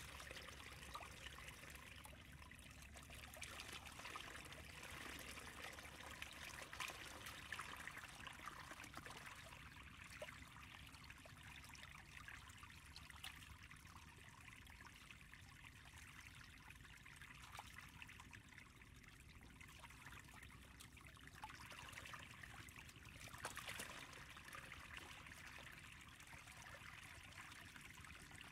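Faint, steady trickle of muddy water running down a shallow channel cut in the mud and pouring into a plastic basket trap.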